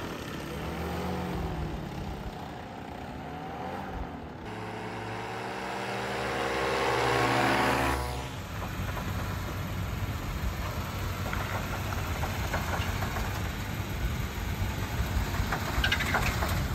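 A paramotor's engine and propeller droning overhead, its pitch rising and falling as it passes, then a steady drone that swells louder for a few seconds and cuts off. After that comes the lower, rougher running of a Jeep Wrangler's engine at low speed.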